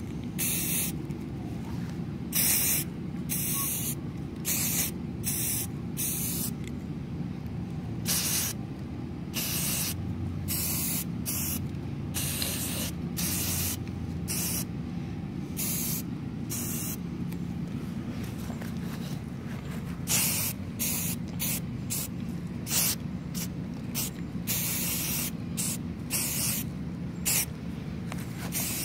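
Aerosol spray can of gray primer hissing in many short sprays, mostly under a second each, with brief pauses between them as light coats are swept over 3D-printed plastic parts.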